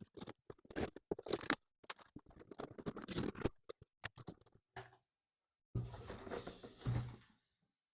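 A shipping package being opened by hand: cardboard and tape tearing, with plastic packing material crinkling and rustling in irregular bursts, broken by a pause about five seconds in.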